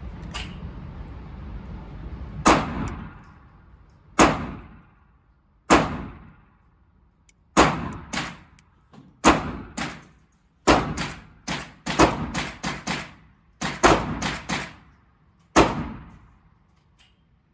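A series of gunshots, about twenty in all. The first few come singly, every second or two, then quicker strings of several shots a second follow.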